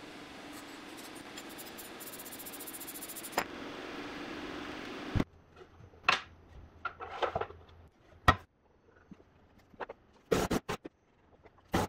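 A steady rushing noise that cuts off abruptly about five seconds in, then sharp wooden knocks and short scrapes as plywood parts are set down and fitted together on a workbench, with the loudest knock a little past the middle.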